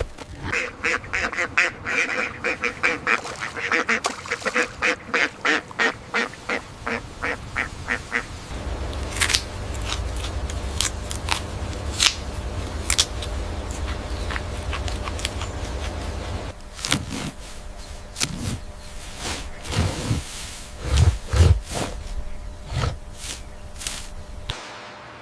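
Ducks quacking in a fast run of short calls, about four a second, for roughly the first eight seconds. Then a low steady rumble with scattered clicks follows, and a few lower calls come near the end.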